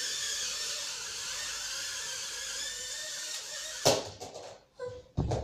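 Small four-propeller toy quadcopter with its motors and propellers spinning at speed, giving a steady high-pitched whine. The whine stops about four seconds in with a sharp knock, followed by a few more knocks and a thump near the end.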